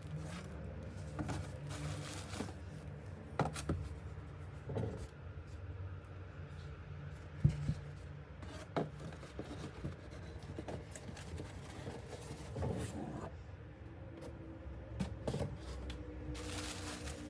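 Hands handling a bag and its packaging: soft rubbing and scraping with scattered light taps and clicks, over a low steady hum.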